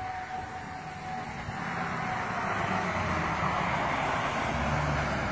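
Pickup truck driving past on the road: tyre and engine noise swells as it comes by, loudest in the second half. A tornado warning siren's steady tone fades out in the first second.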